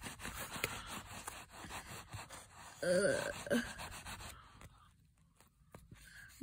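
Scissors cutting through a roll of sticky slime: a run of small wet clicks and crackles, followed by a brief gasp-like voice sound about three seconds in.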